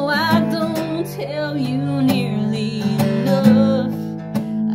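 Acoustic guitar strummed steadily while a woman sings along, her voice sliding between held notes.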